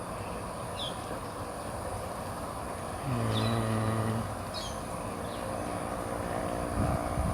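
Outdoor ambience with a steady background hum of distant traffic, a bird repeating a short, high, falling chirp about once a second, and about three seconds in a low droning tone that holds steady for about a second.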